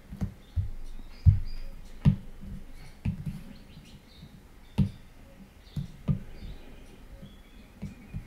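Stylus tapping on a tablet's glass screen: about a dozen irregular taps and knocks, some with a dull low thump.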